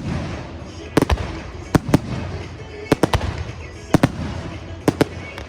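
Fireworks display: aerial shells bursting with sharp bangs about once a second, often two in quick succession, over a continuous low rumble of echoing reports.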